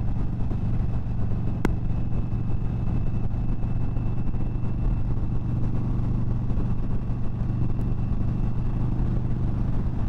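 2022 Indian Chief Bobber Dark Horse's Thunderstroke 116 V-twin running steadily at highway cruise through its stock exhaust, under steady rushing wind noise. A single sharp click comes about two seconds in.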